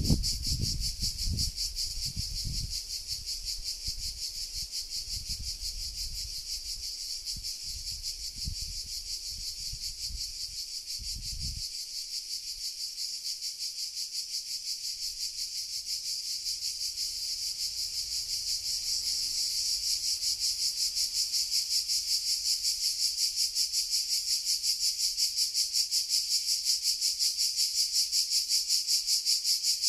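Chorus of cicadas singing, a dense, rhythmically pulsing high buzz that grows louder past the middle. A low rumble underneath stops about twelve seconds in.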